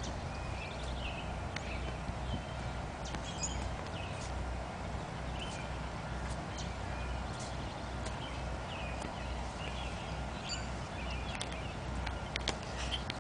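Outdoor ambience of birds chirping intermittently over a steady low rumble, with a few sharp clicks, several close together near the end.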